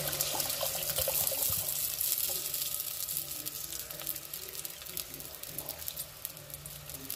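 Heavy cream poured into a hot pot of frying onions, the liquid splashing and sizzling, the noise easing off after the first couple of seconds.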